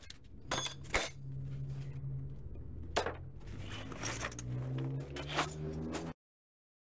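Clinks and clatters of small hard objects being moved about during clean-up, a handful of sharp knocks spread through, over a steady low hum. The sound cuts off abruptly about six seconds in.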